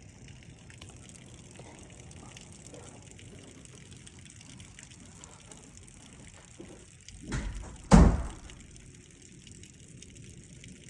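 Steady rain hissing with water running, broken by two loud bursts of noise about seven and eight seconds in, the second one the louder.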